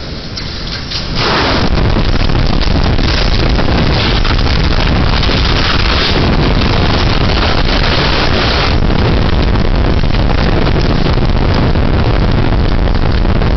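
Tornado-force wind blowing hard, a loud steady rushing noise heavily buffeting the microphone. It surges up sharply about a second in and then holds.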